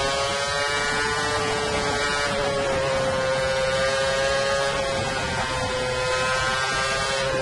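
Red Bull RB9 Formula One car's Renault 2.4-litre V8 at high revs on full throttle in fifth gear, heard from the onboard camera. The engine note holds nearly steady with a brief dip in pitch about two seconds in.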